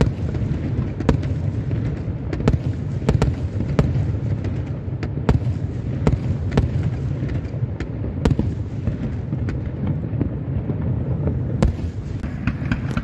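Aerial firework shells bursting in a continuous barrage: a dense low rumble of detonations, broken by sharp bangs and cracks at irregular intervals.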